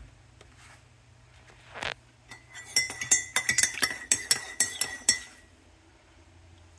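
Metal spoon stirring coffee in a ceramic mug, clinking rapidly against the sides for about three seconds with a ringing tone.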